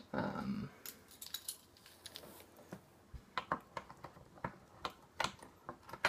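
A keyring with a small Victorinox Swiss Army knife handled in the hands: a run of irregular light metallic clicks and clinks.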